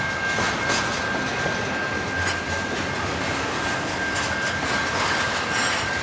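Double-stack container freight cars rolling past, their wheels clacking over the rail joints with a steady high-pitched wheel squeal running underneath.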